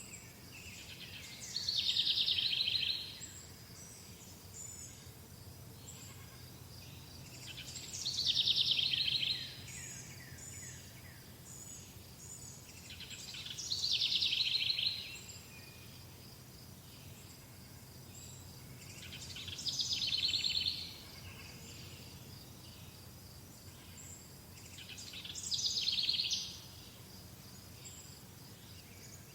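A songbird repeating the same short trilled song phrase five times, about every six seconds, over a steady high insect drone.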